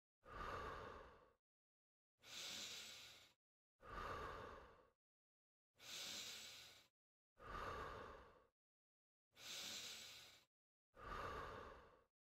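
A person breathing slowly and evenly in and out as an exercise breathing cue. There are seven breaths, each about a second long, one every second and a half or so, with silence between them.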